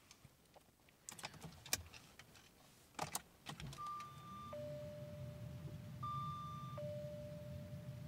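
Key clicks in the ignition of a 1997 Jaguar XK8, then, as the ignition comes on, a repeating electronic dashboard chime: a higher note about every two seconds over a lower held note, with a low hum coming up beneath it.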